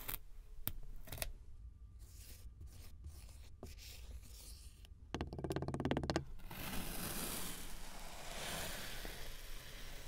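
Metal ice-cream scoop cutting through moldable play sand. There are a few light clicks and scrapes, then a rapid rattle of ticks for about a second, then a long grainy crunching hiss as the scoop is dragged through the sand.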